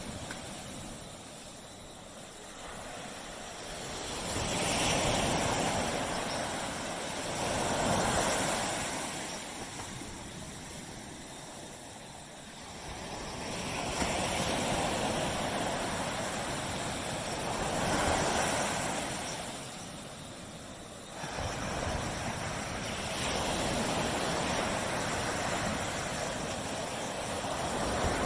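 Waves breaking and washing up on a beach, the surf swelling and falling back about every three to five seconds.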